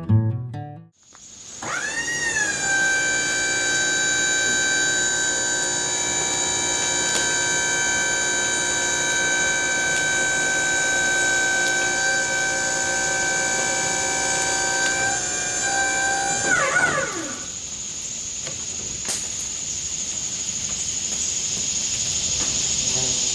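A band sawmill's machinery spins up about a second in and runs with a steady high whine for about fifteen seconds. Its pitch then falls as it winds down, leaving a steady noisy hiss with a thin high tone.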